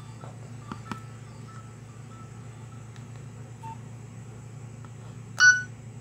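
Nokia 1680 classic's loudspeaker playing a few faint electronic ringtone notes over a low hum, then, about five and a half seconds in, one loud short electronic beep as the next tone, the clock alert, is started.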